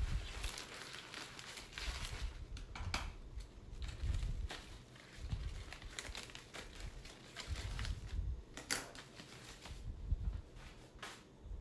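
Paper and plastic wrapping crinkling and rustling in irregular bursts as a potted plant is unwrapped by hand, with scissors cutting the plastic sleeve around the pot.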